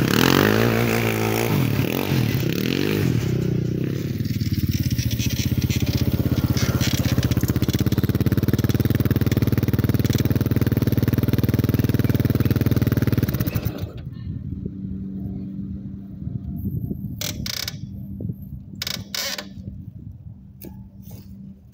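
Yamaha Raptor 660R quad's single-cylinder four-stroke engine through a Lexx aftermarket exhaust with the stock airbox, revving up and down for the first few seconds, then running steadily at high revs. About fourteen seconds in it drops sharply to a much quieter low idle, with a few clicks and knocks.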